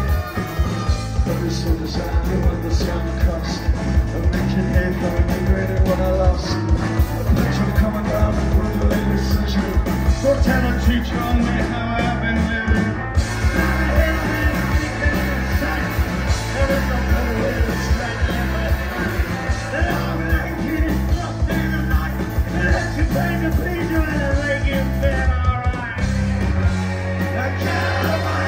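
Live rock band playing with electric guitars, bass, drums, saxophone and brass over a driving beat. Near the end the beat drops away, leaving a held low note.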